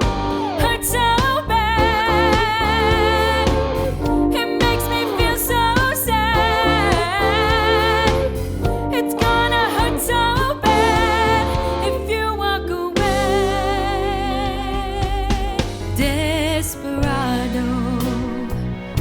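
A band playing a song with a lead singer, whose sung lines carry a wavering vibrato over steady bass and instrumental backing.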